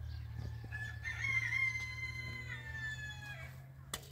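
A rooster crowing once, one long call lasting nearly three seconds, over a steady low hum; a sharp knock just before the end.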